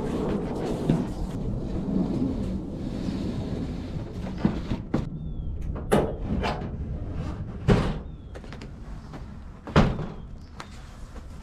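Ford Ranger pickup's tailgate being unlatched and lowered, with sharp clunks about six and eight seconds in. A loud thud comes near the end as a rolled bundle of material is set down on it. Wind rumbles on the microphone through the first few seconds.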